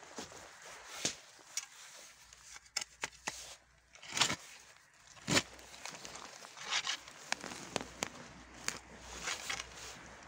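A garden spade stabbed into soil over and over, each stab a short crunch as the blade cuts through earth and old raspberry roots, with soil and dry leaves crackling in between. The loudest crunches come about four and five seconds in.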